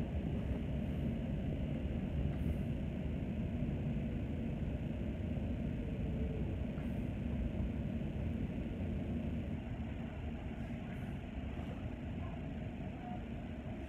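Steady low rumble inside an Elizabeth line Class 345 electric train running along the track, wheels and running gear heard through the carriage. It grows slightly quieter in the last few seconds.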